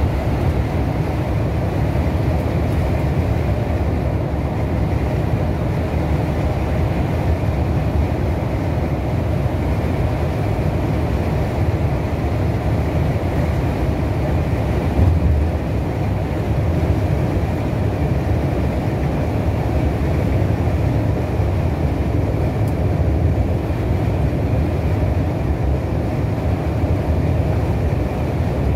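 Steady low drone of engine and tyre noise inside a coach at cruising speed on a motorway, with one brief louder low thump about halfway through.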